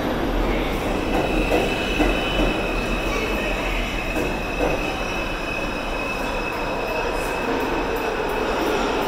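New York City subway train (2 line) pulling out of the station past the platform: steady rumble and clatter of the cars, with a high, steady wheel squeal from about a second in that fades near the end as the last car leaves.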